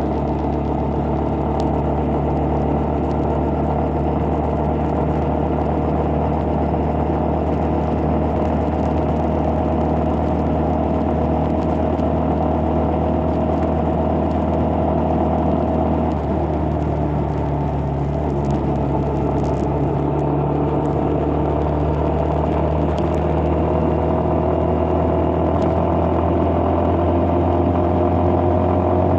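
Engine of a moving road vehicle running steadily with road noise. Its pitch rises slightly near the end.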